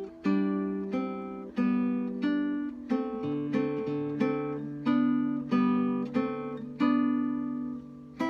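Acoustic guitar playing a slow, simple melody in single plucked notes, a new note about every two-thirds of a second, each ringing and fading. A low bass note is held under the melody from about three seconds in until near the end.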